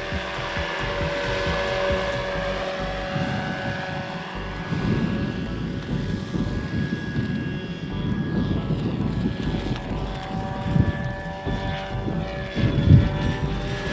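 Radio-controlled scale model helicopter flying, its motor giving a steady whine over rotor noise.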